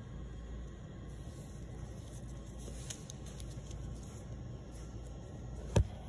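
Steady low whir of a heat gun warming a rubber valve-stem stabilizer grommet on a steel wheel. A single sharp knock near the end.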